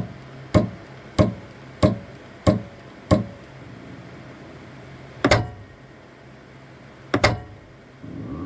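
Elegoo Saturn 4 Ultra 16K resin 3D printer knocking: six sharp knocks a little under two a second, then a pause, a single knock and a quick double knock, over a steady low hum. This knocking is the fault the owner reports when the build platform travels up before printing.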